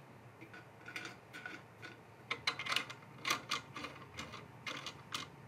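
Stainless steel cable-railing tensioners being pushed into their post-mounted stainless receivers one after another. The metal parts make faint, light clicks and taps at irregular intervals.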